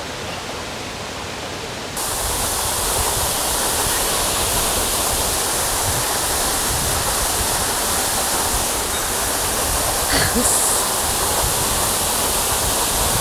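Rushing water of a mountain headwater stream, a steady hiss that jumps louder and brighter about two seconds in.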